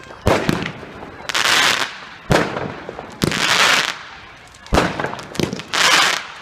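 Fireworks going off in quick succession: sharp bangs every second or so, mixed with longer hissing bursts about half a second each.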